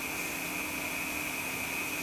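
Steady whir of a running computer's cooling fans, with a faint high steady whine over it.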